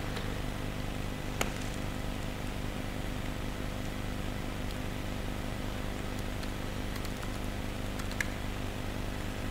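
Steady low mechanical hum of room ventilation or equipment fans, with a few faint, scattered computer-keyboard clicks.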